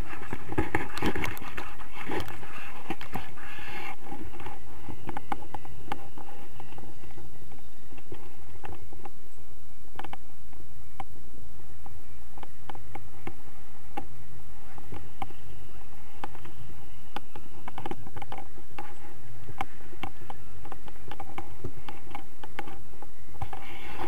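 Wind noise from the airflow of paraglider flight buffeting an action camera's microphone: a steady rumble, with many scattered clicks and scrapes from the camera mount and harness.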